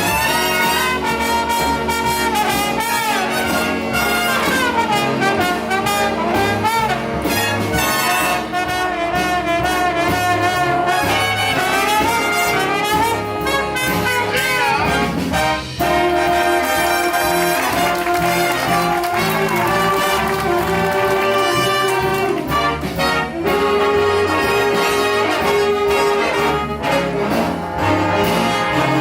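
Big band playing a swing arrangement, with a solo trombone carrying a bending, improvised melody line over the rhythm section and horns.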